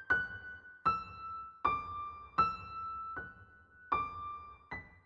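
Background music: a slow melody of single piano notes, struck one at a time and left to ring.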